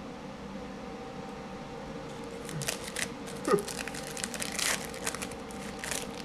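Plastic trading-card pack wrapper crinkling and tearing as it is opened, in short crackly bursts starting about two and a half seconds in, over a steady low hum.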